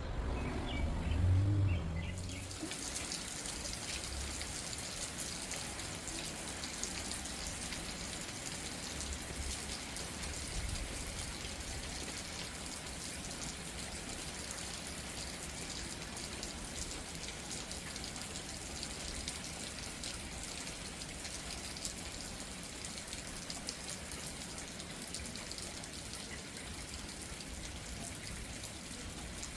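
Steady heavy rain falling, a hiss that sets in about two seconds in, just after a low thump.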